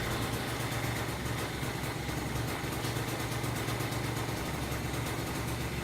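Honda Razz scooter's big-bore-kit two-stroke engine idling steadily, low and lumpy at about 1,300 rpm, while still being broken in.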